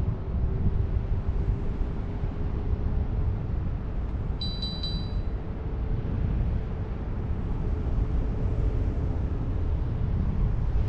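Wind rushing over the microphone of a paraglider pilot in flight, a steady low buffeting. Partway through comes a short run of high, evenly spaced electronic beeps.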